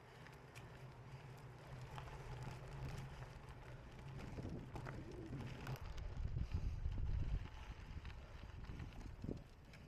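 Wind rumbling on the microphone over the rattle and scattered clicks of a cyclocross bike ridden over rough ground. It grows louder toward the middle and eases near the end.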